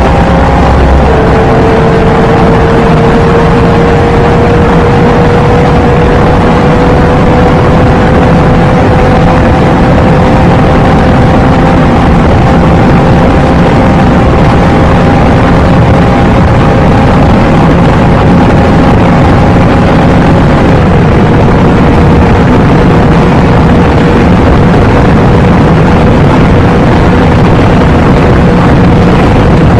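Audi RS3's turbocharged five-cylinder engine pulling hard at very high speed, its pitch climbing slowly and dropping twice at gear changes, about a second in and about two-thirds of the way through, under a constant loud roar.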